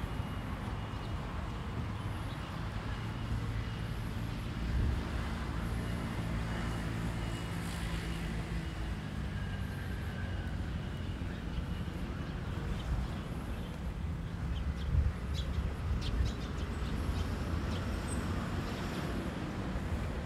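Outdoor traffic ambience: a steady low rumble of vehicle engines going by, with a few light clicks in the second half.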